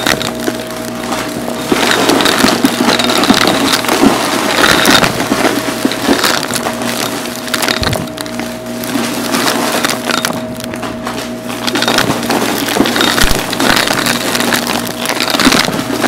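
Upright vacuum cleaner running with a steady motor hum while it sucks up confetti and glitter from a carpet, the debris crackling and rattling through it. The crackle swells and dips as the head passes back and forth over the scattered pieces.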